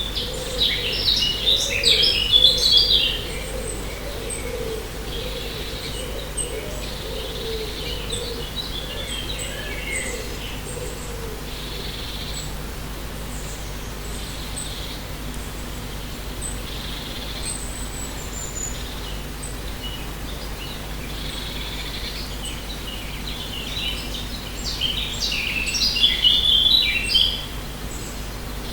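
Forest ambience of songbirds chirping and twittering, with two loud bursts of rapid chirps near the start and about 25 seconds in, and fainter calls and thin high notes between them. A low warbling sound runs through the first ten seconds, over a steady low background hum.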